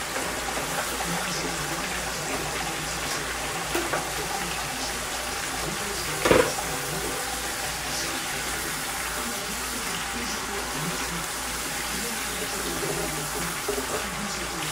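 Kitchen faucet running as hands are washed under it, with a single knock about six seconds in.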